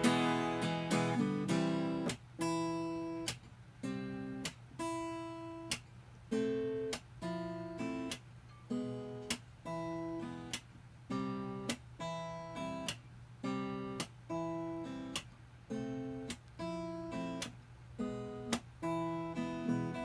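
Acoustic guitar playing solo with no singing: strummed chords struck and cut short in a steady rhythm, with brief gaps between them.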